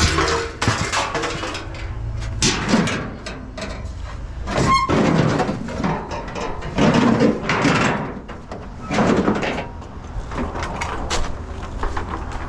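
Scrap metal being handled and dropped: irregular clanks and scrapes, with one ringing metallic clank about five seconds in.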